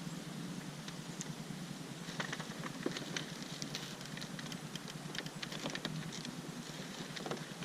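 Steady engine hum with scattered small clicks and crackles starting about two seconds in.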